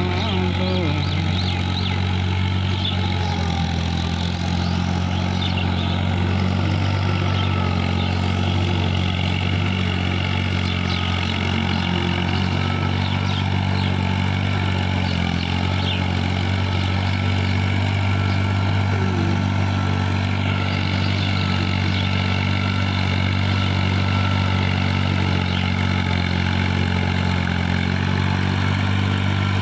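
Diesel tractor engine running steadily under load as it pulls a rotary tiller through a flooded rice paddy, a constant low drone.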